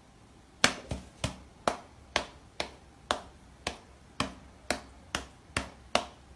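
A cat's paw and a person's hand tapping on opposite sides of a glass pane: about a dozen sharp taps, roughly two a second, each ringing briefly.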